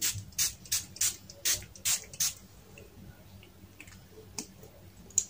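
PIXI setting spray misted onto the face from a pump bottle: a quick run of about seven short hisses, one pump after another, stopping a little over two seconds in. A single sharp click near the end.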